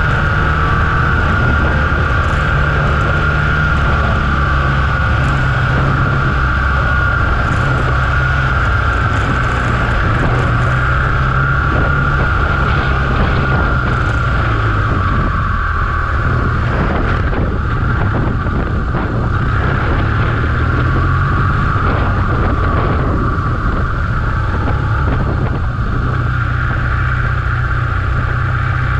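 BMW R1200GS Adventure's boxer twin engine running steadily at low road speed, with a steady high hum over the low engine note.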